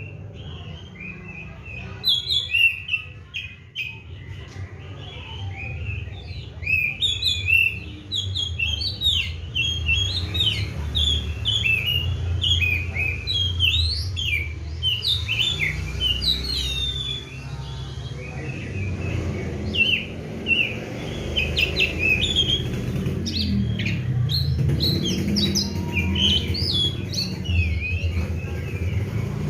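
Oriental magpie-robin (kacer) singing continuously, a fast, varied string of short chirps and whistles, over a steady low rumble.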